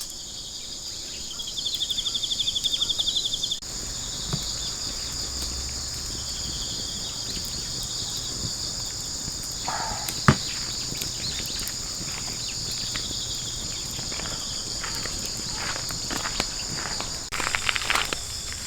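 Insects chirping steadily in high, continuous bands, with a faster pulsing trill for about two seconds near the start. There is a single sharp click about ten seconds in, and a few light clicks and rustles near the end.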